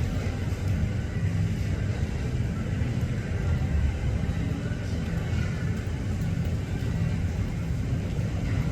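Aircraft engines rumbling steadily at an airport, a low, fluctuating rumble with no distinct events.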